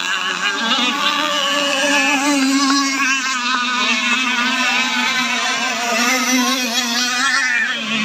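Several radio-controlled racing powerboats running flat out together, their motors making an overlapping high whine that wavers up and down in pitch.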